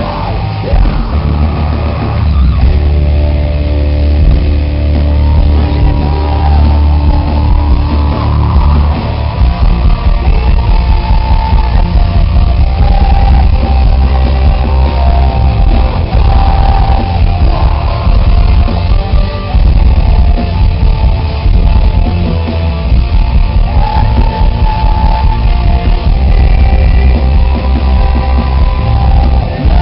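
Metalcore band playing live and loud: heavily distorted electric guitars over keyboards and drums, the beat getting busier about nine seconds in.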